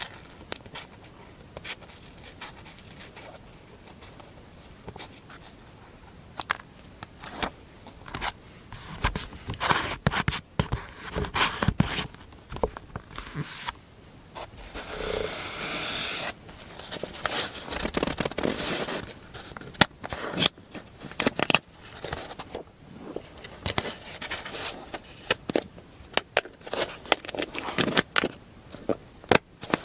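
Close-up paper and stationery handling for journal decorating: scattered taps, clicks, scrapes and rustles, with one longer scraping rustle about halfway through.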